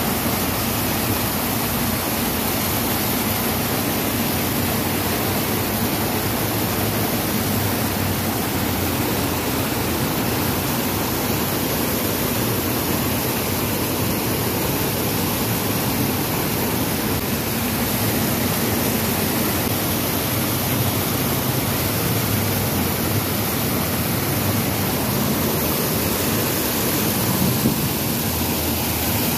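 Water sheeting down the concrete walls of a cascade fountain and splashing into the channels below: a steady, even rush of falling water.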